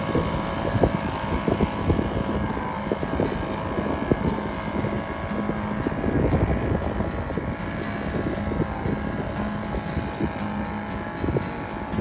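British Seagull two-stroke outboard motor running steadily, with irregular knocks and slaps mixed in.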